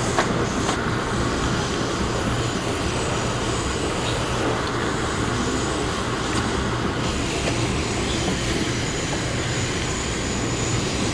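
Steady rumble and rail noise of an Amtrak passenger car in motion, heard from inside the car, with a couple of sharp clicks near the start.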